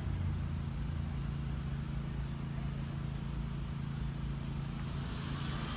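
Steady low drone of running machinery, with a short hiss near the end.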